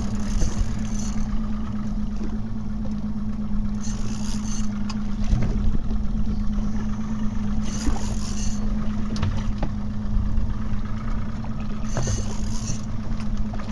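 Fishing boat's engine running steadily with a constant hum, under wind and water noise, with short bursts of hiss about every four seconds.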